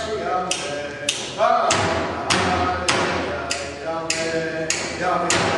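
Inupiaq frame drum (qilaun) struck in a steady beat, a little under two strikes a second, with a voice singing a drum song over it.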